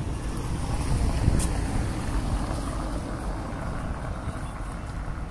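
A small sedan driving past close by, with engine and tyre noise on the road surface. It is loudest about a second in and eases off as the car moves away.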